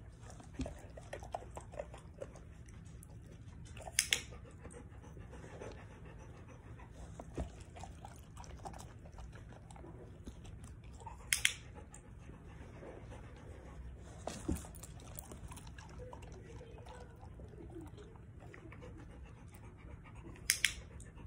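A large dog breathing and panting close by. Three short, sharp double noises stand out, about seven to nine seconds apart.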